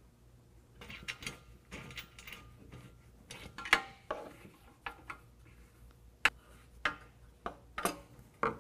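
Light-bar mounting bolts being fastened by hand with a hex key inside a metal bull-bar top bar: irregular metallic clicks and scrapes of tool and hardware on metal, loudest a little before the halfway point.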